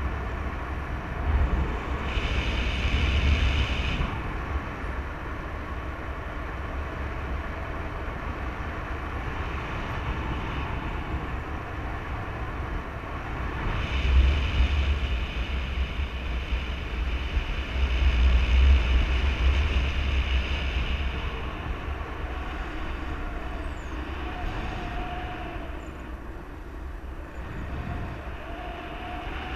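Wind rushing over the microphone of a paraglider pilot's camera in gliding flight: a steady low rumble and hiss that swells in gusts several times.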